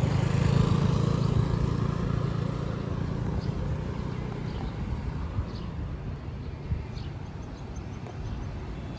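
A motor vehicle passing close by on the street, its engine hum loudest about half a second in and then fading away over several seconds, over general city street noise.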